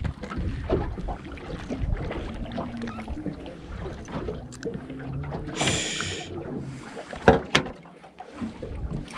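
Knocking and rustling handling noise aboard a small fishing boat, with a short hiss a little past halfway and two sharp knocks soon after.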